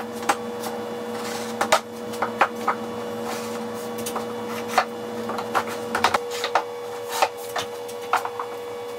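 Plywood shelves being fitted into a cabinet carcass: a run of irregular wooden knocks and clicks as the boards are slid and tapped into place, over a steady hum.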